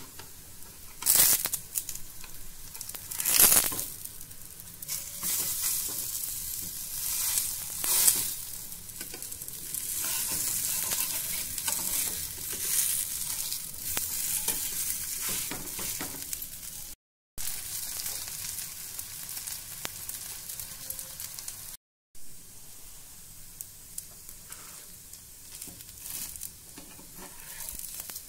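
Aloo poha patties sizzling as they shallow-fry in ghee in a frying pan, with a few louder scrapes of a steel spatula against the pan as they are turned, the loudest in the first eight seconds or so.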